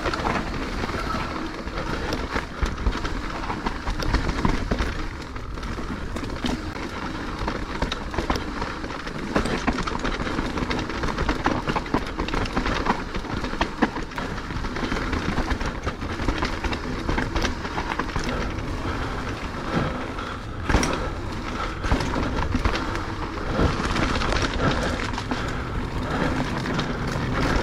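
Mountain bike riding down a rough trail: continuous tyre noise and rattling of the bike, with frequent sharp knocks as it hits rocks and roots, one especially hard knock about two-thirds of the way through.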